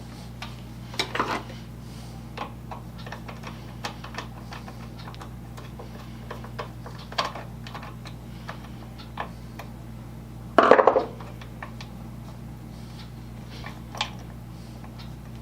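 Small metal parts and hand tools clinking and clicking as a buffing jack is put together, with a louder clatter about eleven seconds in, over a steady low hum.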